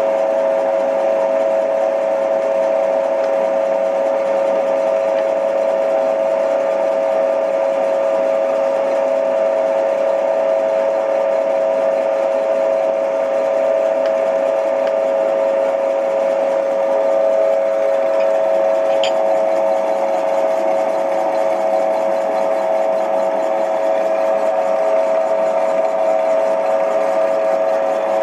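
Boring machine running steadily with a constant, even whine as its spindle turns in the big-end bore of a ZIL-130 connecting rod, machining the bore to restore the rod's geometry.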